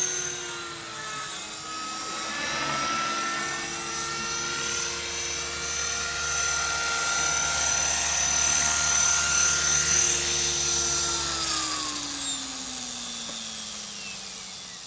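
Align T-REX 500 electric RC helicopter running at a steady head speed with a whine, on a machine reported to have developed an abnormal noise. From about eleven seconds in it spools down, the whine falling steadily in pitch and fading.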